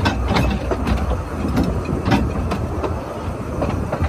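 2 ft narrow-gauge railway carriage running along the track, its wheels clicking irregularly over the rail joints a few times a second, with wind buffeting the microphone as a low rumble.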